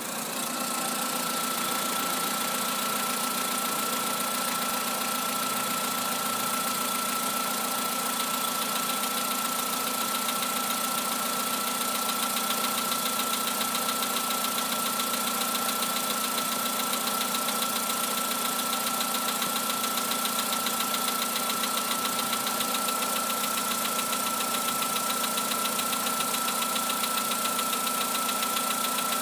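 Volkswagen Polo Sedan's 1.6 CFNA petrol engine running steadily with a fast, even knocking: piston knock.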